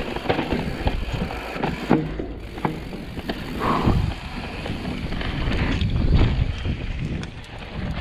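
Mountain bike rolling fast down a dirt trail: wind rushing over the camera's microphone, tyres on dirt, and frequent clicks and rattles from the bike over bumps.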